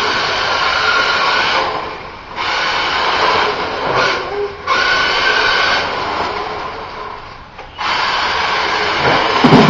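Battery-powered toy remote-control car's electric motor whining as it drives, dropping out briefly three times as the throttle lets off. A couple of low thumps near the end.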